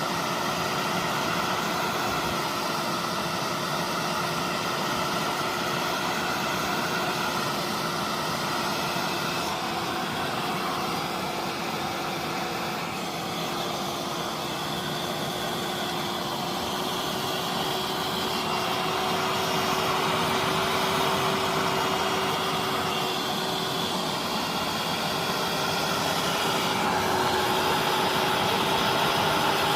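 Hand-held hair dryer running steadily, a continuous airy rush with a held hum, blowing hot air on a phone's back cover to soften the adhesive so it bonds.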